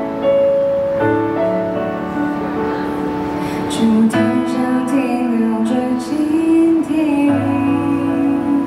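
A woman singing a slow Mandarin pop ballad live into a microphone, over stage piano chords that change about every three seconds.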